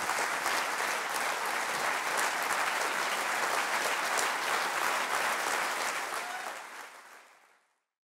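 Audience applauding, a dense crackle of many hands clapping, fading out near the end.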